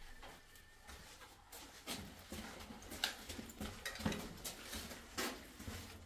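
Footsteps scuffing on a gritty concrete floor, about one step a second, in an echoing tunnel.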